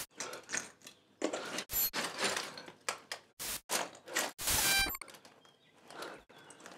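Abrupt bursts of static-like noise, edited in and cut off sharply, coming several times a second at points, a few of them carrying thin high tones.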